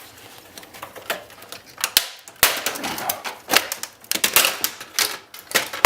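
Irregular sharp clicks and knocks of plastic parts and a screwdriver as the plastic housing of an Oki Microline 9-pin dot-matrix printer is worked apart by hand.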